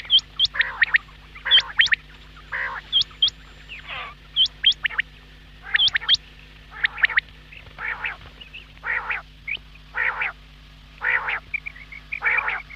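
Quail calling over and over: short harsh calls about once a second, many with a thin, sharp upward-sliding whistle, and a quick run of short chirps near the end. A faint steady low hum runs underneath.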